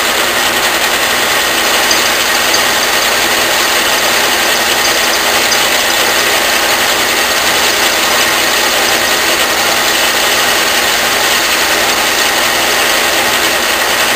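Logan metal lathe running steadily while its turning tool takes a taper cut on a spinning aluminum bar, the compound rest fed by hand.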